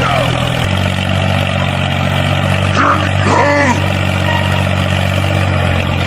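Tractor engine running steadily at a low, even hum. A few short, high squeaky glides cut in about three seconds in.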